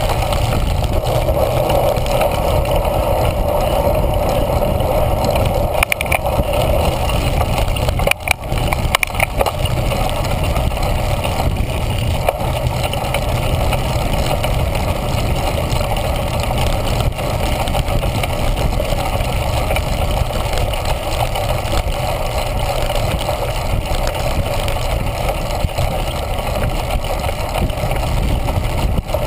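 A cyclocross bike ridden fast over grass, heard from a handlebar-mounted action camera: a steady rumble of wind on the microphone and tyres and frame on rough ground, with a few sharp rattles around eight to nine seconds in.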